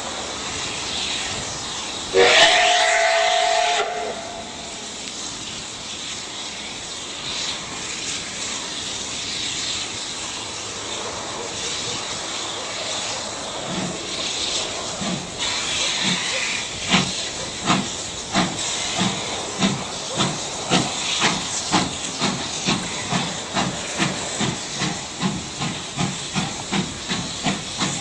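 Russian E-class 0-10-0 steam locomotive sounding one loud whistle blast of about two seconds, then hissing steam. About halfway through its exhaust chuffs begin and settle into a regular beat of about two a second as it works.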